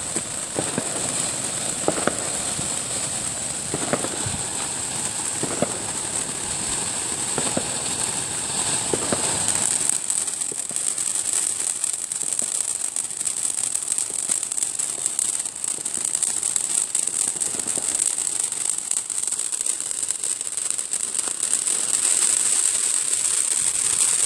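Backyard consumer fireworks going off: a steady high hiss with a few separate cracks at first, turning about ten seconds in into dense, rapid crackling.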